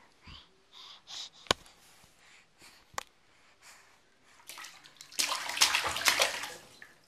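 A baby splashing bathwater with her hands in a plastic infant tub: a burst of loud splashing in the last couple of seconds. Before it, a few soft baby sounds and two sharp knocks.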